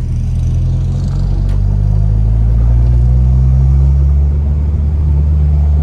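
Honda Civic Si four-cylinder engine and exhaust under way, a steady low drone that rises gently in pitch over the first few seconds as the car pulls.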